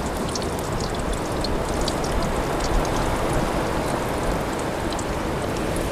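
Cornstarch-dusted rockfish pieces frying in hot vegetable oil in a steel pan, a steady sizzling hiss with scattered small pops.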